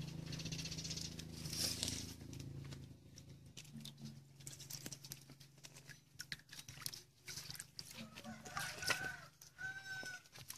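Shellfish shells clicking and knocking together as they are handled and rinsed by hand in a bowl of water, with a low hum in the first couple of seconds. A hen clucks a few times near the end.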